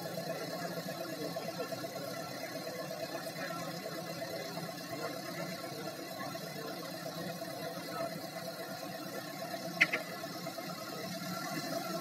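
A steady engine hum, with one short, sharp clink about ten seconds in.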